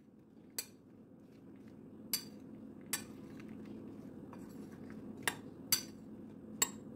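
Metal spoon stirring sliced okra in a bowl, clinking sharply against the bowl about six times at uneven intervals. A faint steady low hum lies under the clinks from about a second and a half in.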